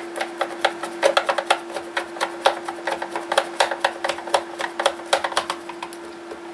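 Screwdriver driving a long screw into the plastic back case of a 1980s Aiwa boombox: a rapid, irregular run of small clicks that stops near the end.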